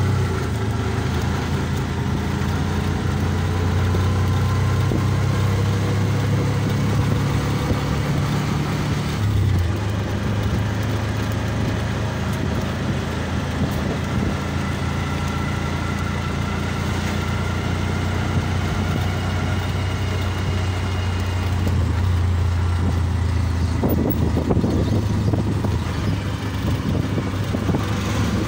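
Auto-rickshaw (tuk-tuk) engine running steadily while riding inside the open cab, with road and wind noise. Another tuk-tuk passes close alongside near the end.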